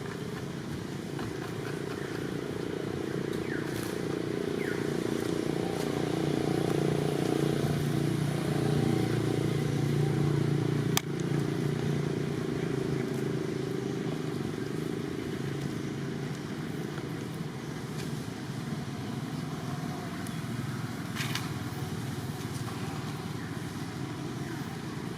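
A motor engine running with a low, steady rumble that grows louder up to about eleven seconds in, ends in a sharp click, then eases off.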